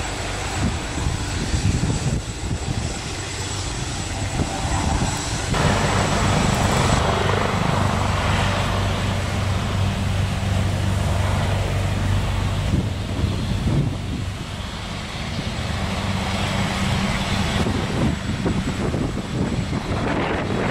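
Eurocopter EC135 P2+ helicopter flying away after takeoff: its twin turboshaft engines, main rotor and Fenestron ducted tail rotor make a steady low hum under a continuous rushing noise.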